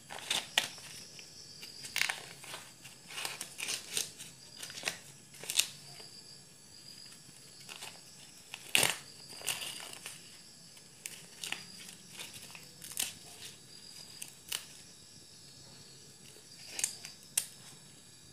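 Husks being peeled and torn by hand off a fresh ear of corn: irregular crisp rustling and ripping, with the sharpest rip about nine seconds in.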